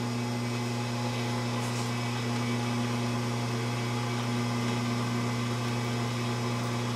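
1940s Logan 200 metal lathe running with a steady electric hum while its tool bit takes a light cut in the end of the spinning bar, cutting a small pocket for a live center.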